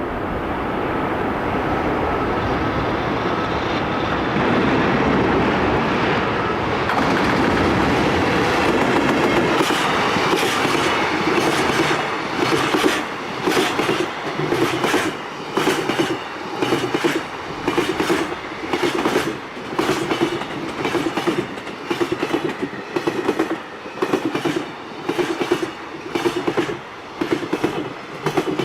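Freight train passing: a steady, building rumble of the locomotive for the first ten seconds or so, then a regular clickety-clack of the wagons' wheels over rail joints, in groups about once a second.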